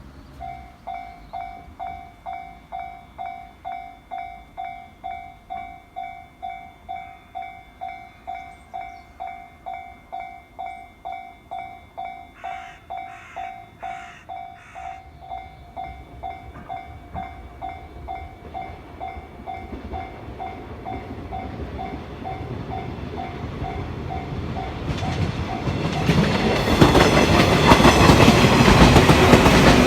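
Japanese level-crossing alarm ringing its JR-type electronic bell, about two dings a second, while an electric train approaches. Four short, sharp sounds cut in about halfway through. Near the end the train reaches the crossing and passes loudly, its wheels clacking over the rail joints.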